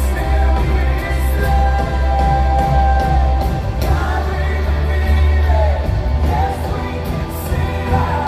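Live church worship band playing a song with a singer, heavy bass and drums, in a large hall.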